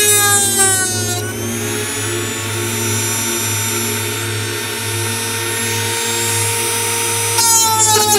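High-speed rotary tool with a small abrasive cut-off wheel cutting through glued popsicle-stick wood. Its whine sags in pitch as the wheel bites in during the first second, holds steady, then rises and sags again as it cuts near the end.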